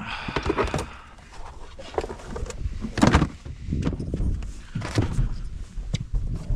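Irregular knocks, thumps and rustling of someone moving about and handling gear in a small fibreglass boat. There is a loud knock about three seconds in.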